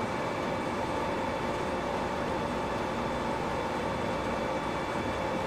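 Steady machinery hum and hiss with a few faint steady tones, even throughout.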